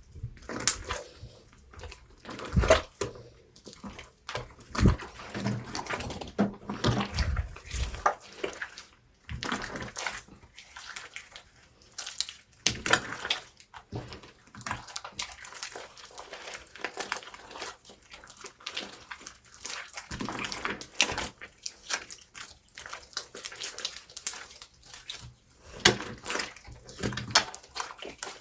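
Slime being squeezed and worked by hand: a run of irregular wet, sticky clicks and squelches.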